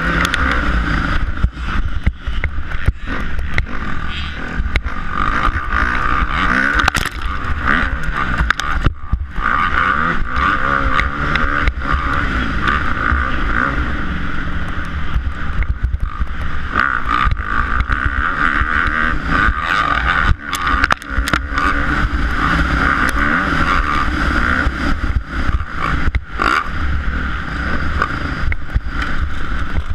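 Kawasaki KX250F four-stroke single-cylinder dirt bike engine running hard at racing speed, heard from the rider's helmet. The engine note dips briefly a few times.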